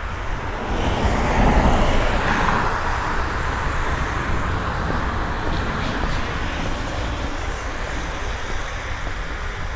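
A car passing on a wet street, its tyres hissing. It swells to its loudest about a second and a half in, then fades away slowly over a steady hiss of rain.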